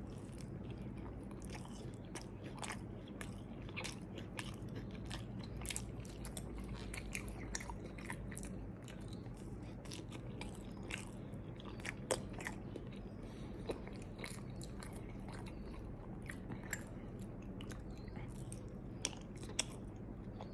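A person chewing takoyaki: faint, irregular mouth clicks and chewing over a low steady hum.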